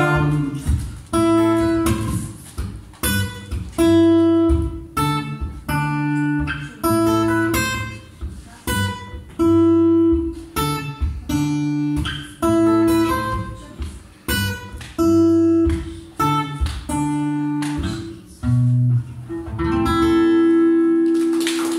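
Solo guitar played without singing: chords and picked notes struck one or two a second, closing on a long held chord near the end.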